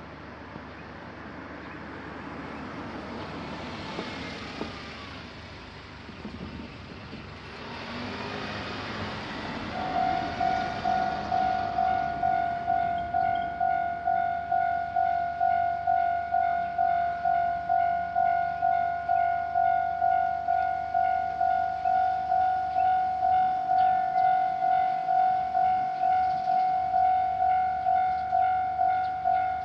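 Japanese level-crossing electronic warning bell starting about a third of the way in and ringing steadily, one ding about twice a second, signalling an approaching train. Before it, a rushing noise swells twice.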